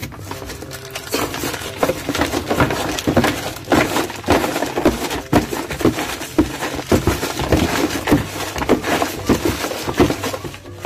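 Irregular crunching, knocking and rustling as a hand rummages through things in a cardboard box.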